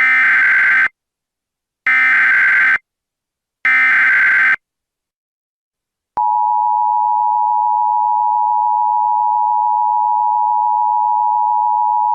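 Emergency Alert System tones: three short bursts of screeching digital SAME header data, then about six seconds in the steady two-tone attention signal starts and holds, announcing an alert message.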